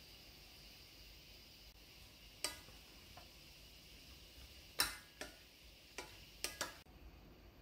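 A wooden spoon stirring sliced onions and leek in a stainless steel pot, with about six sharp knocks of the spoons against the pot, the loudest about five seconds in, over a faint steady hiss.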